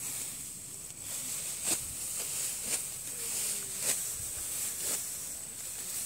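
Hand sickle cutting through standing rice stalks, a crisp stroke about once a second, five times in all, over a steady high hiss.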